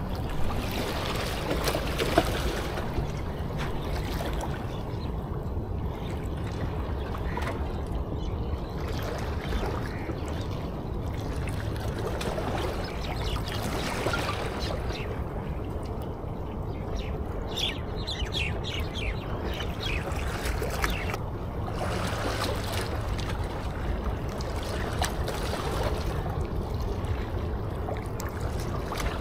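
Steady wash of sea water lapping at the shore.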